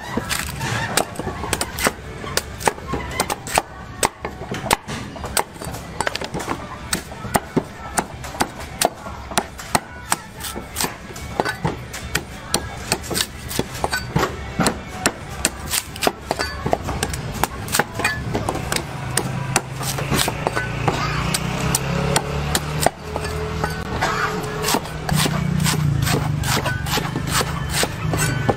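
Cleaver chopping the husk off green coconuts on a wooden chopping block: sharp, repeated chops, about two to three a second.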